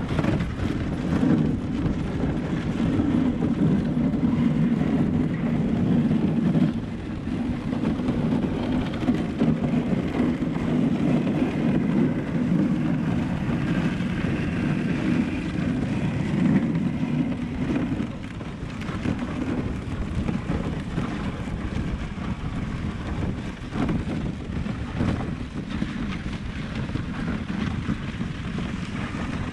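Steady rushing noise of a husky-drawn dog sled gliding over packed snow, with wind buffeting the microphone. It eases slightly about two-thirds of the way through.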